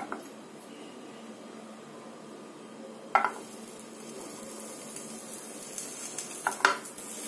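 Small steel bowls clinking against a non-stick pan as they are set down one by one: once at the start, once about three seconds in, and twice in quick succession near the end. A faint hiss joins after the second bowl goes in.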